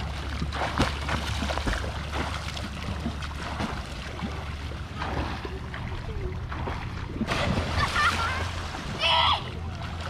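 Splashing water from a swimmer's overarm strokes and kicks, a steady wash in a swimming pool. Brief voices come in near the end.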